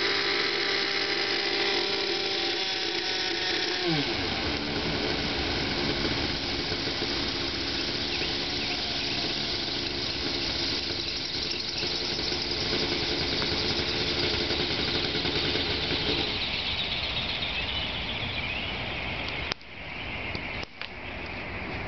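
Thunder Tiger Raptor 50 RC helicopter's small nitro glow engine running with a high whine while the rotors spin, its pitch dropping sharply about four seconds in. After that it goes on as a rough, noisy whir, with a few clicks near the end.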